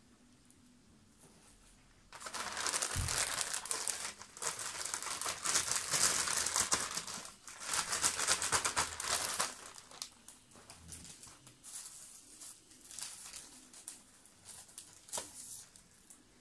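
Crinkly white parcel wrapping being crumpled and pulled open by hand. Quiet for about two seconds, then loud rustling and crinkling for about eight seconds, easing to lighter, scattered rustles near the end.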